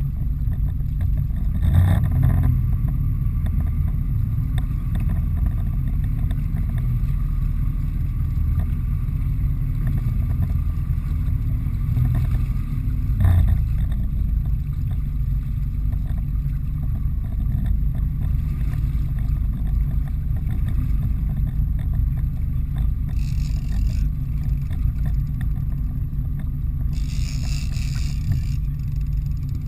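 A boat's engine running steadily with a low rumble. Two dull knocks come about 2 and 13 seconds in, and two short hissing bursts come near the end.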